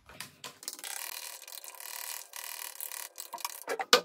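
Hair bleach paste (powder and developer) being stirred and scraped in a bowl: a steady run of rapid scraping clicks, with a few louder sharp clicks near the end.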